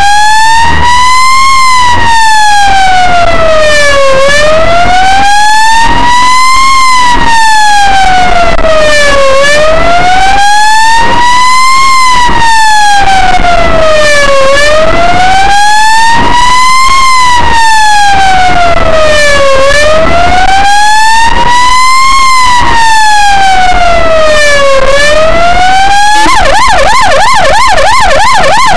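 Ambulance siren on wail, its tone sweeping slowly up and down, each rise and fall lasting about five seconds; about two seconds before the end it switches to a rapid yelp. It is very loud.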